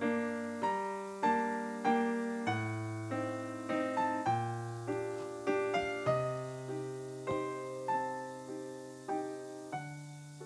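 Background music: a gentle solo piano or electric piano melody, notes struck about twice a second and left to ring and fade.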